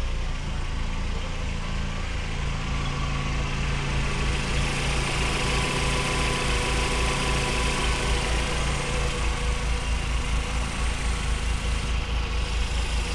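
1999 Mercedes SLK230's supercharged 2.3-litre four-cylinder idling steadily after a cold start.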